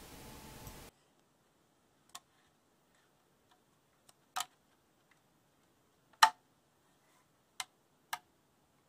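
A rigid 3D-printed nylon ankle foot orthotic being handled and turned over: scattered sharp plastic clicks and knocks, the loudest about six seconds in. A steady hiss cuts off about a second in.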